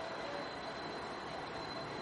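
Freight cars rolling across a steel girder railroad bridge: a steady rolling rumble and hiss with a thin, steady high tone above it.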